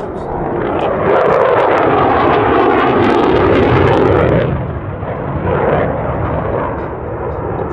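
F-16 Fighting Falcon jet engine noise as the fighter passes, loud with a crackle, swelling about a second in and falling off sharply after about four and a half seconds, then a smaller swell near six seconds.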